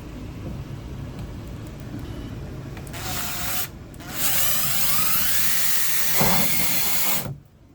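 Power drill with a 5/16-inch bit boring an anchor hole through the plastic wall of a shower stall. A short burst about three seconds in, then a longer run of about three seconds with the motor pitch shifting, stopping abruptly near the end.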